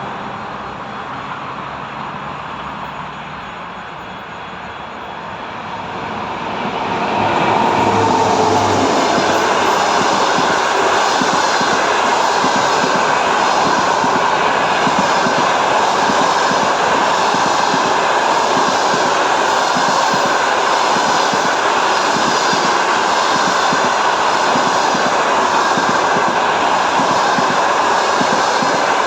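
EP1M electric locomotive and its passenger train passing close by: the noise swells about seven seconds in, then stays loud and steady as the train rolls past.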